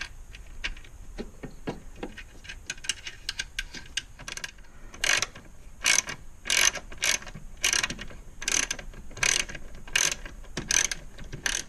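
Hand ratchet turning a 10 mm bolt: light clicking at first, then short runs of ratchet clicks about once every half to one second as the handle is swung back and forth.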